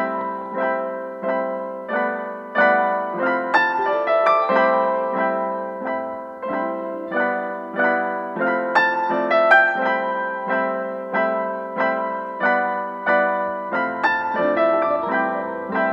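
Background piano music: single notes and chords struck at an even, moderate pace, each fading before the next.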